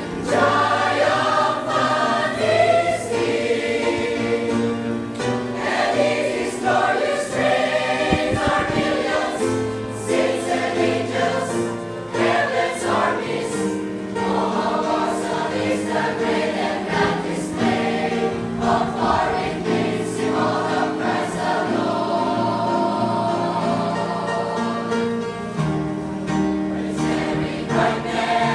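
A church choir singing in parts, in held chords that change every second or so.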